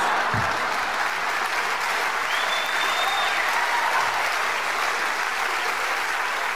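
Live stand-up comedy audience applauding steadily, in response to a punchline.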